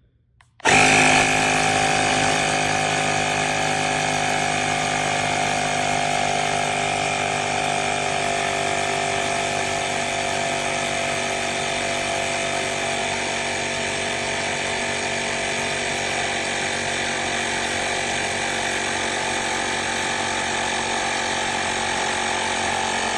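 Powools cordless portable tire inflator's small electric compressor starting up about a second in and running steadily as it pumps up a bicycle tire, then cutting off suddenly at the end as it auto shuts off at the set PSI.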